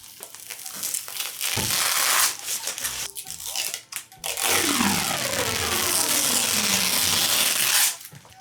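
Plastic packaging or film being handled and torn: crinkling and tearing, first in a short burst, then in a longer stretch of about three and a half seconds with a falling, squeaky pitch.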